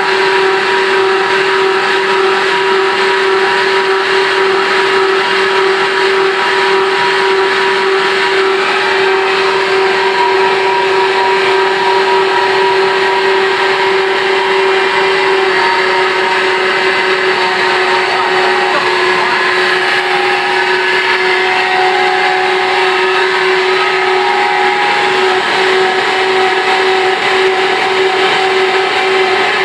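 Cross-flow micro-hydro turbine running steadily, a constant mechanical hum over the rush of water pouring out of its outlet.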